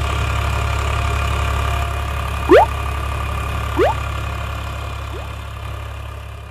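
Eicher 551 tractor's three-cylinder diesel engine running steadily, driving a rotary tiller through the soil. Two short rising blips, a sound effect, cut in about two and a half and four seconds in, and the sound fades out near the end.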